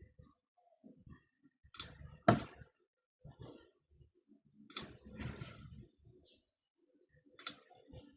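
A few sharp clicks with soft knocks and low rumbling between them, as of someone handling things at a desk into a computer microphone; the loudest click comes a little over two seconds in.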